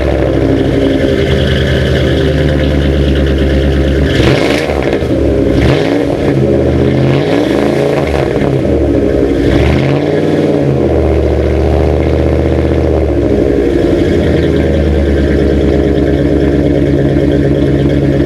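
Exhaust of a 1996 Dodge Ram 1500 through a Flowmaster Super 44 chambered muffler, heard at the tailpipe. The freshly started engine runs steadily, is revved up and down several times from about four to eleven seconds in, then settles back to a steady idle.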